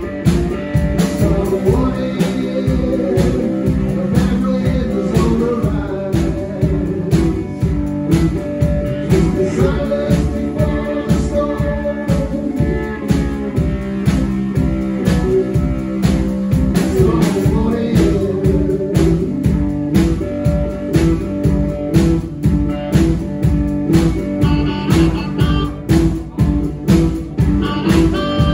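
Live blues band playing: acoustic guitar over a drum kit keeping a steady beat, with harmonica near the end.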